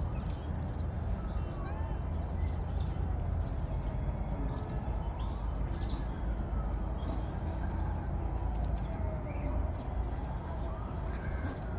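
Outdoor ambience: a steady low rumble of wind on the microphone, with a distant siren slowly wailing up and down and scattered bird chirps.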